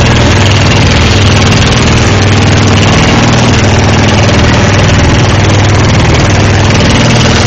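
Small boat's engine running steadily and loud under way, with the rush of wind and water.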